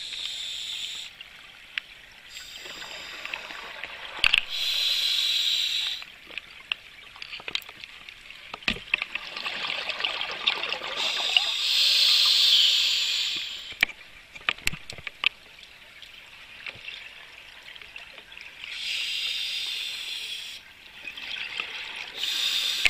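Scuba diver breathing through a regulator underwater: long hissing inhalations every several seconds, with crackling, bubbling exhalations in between.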